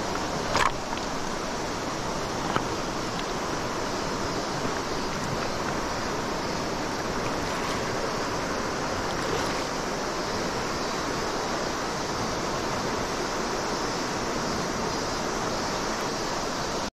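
Shallow river running steadily over a stony bed, a constant rushing of water. Two short knocks break through it, about half a second in and again at about two and a half seconds.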